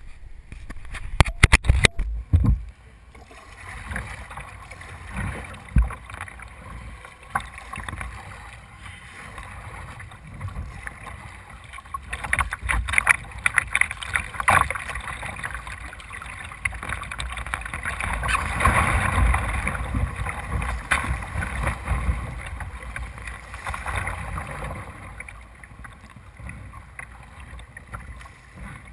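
Choppy tidal rapids rushing and splashing against a kayak's hull as it moves through the white water, swelling louder in stretches. A few sharp knocks sound in the first couple of seconds.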